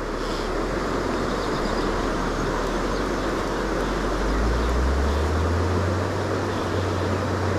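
A small stream running high, rushing over a stony riffle in a steady wash of water noise, with a low steady hum underneath that shifts up in pitch about four and a half seconds in.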